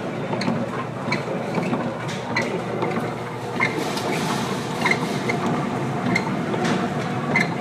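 Noise on a container ship's bridge in heavy storm seas: a steady rumble of wind and sea with irregular clicking and rattling, about once or twice a second, as the bow plunges through the waves.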